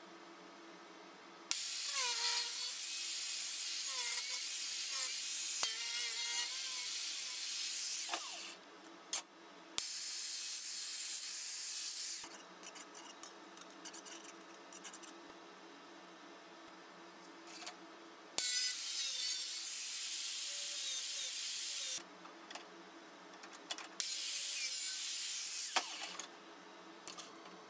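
Power tool run in four bursts of a few seconds each, each starting and stopping abruptly.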